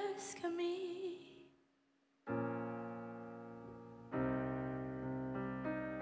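A female voice holds the last words of a sung line over a soft accompaniment and fades out about a second and a half in. After a brief dead silence, a stage keyboard strikes a sustained piano chord that slowly dies away, then a second chord about two seconds later, with a few more notes near the end.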